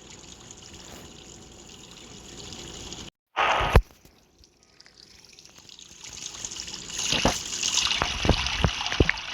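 Running water trickling steadily, broken by an abrupt cut about three seconds in and a short loud rush of water. The trickling then swells again with scattered drips and splashes near the end.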